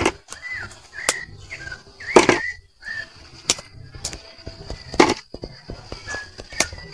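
A knife cutting prickly pear (nopal) pads from the cactus: a handful of sharp, crisp snaps about a second apart, the loudest about two seconds in. Short bird chirps and a faint steady high tone run behind them.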